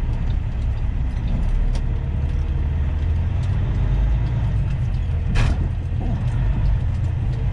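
Semi-truck's diesel engine running with a low, steady rumble, heard from inside the cab. A brief sharp sound cuts in once, about five seconds in.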